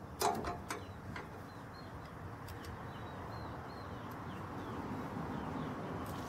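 A few sharp metallic clicks from a ratchet wrench being handled in the first second, then steady outdoor background with a small bird chirping over and over.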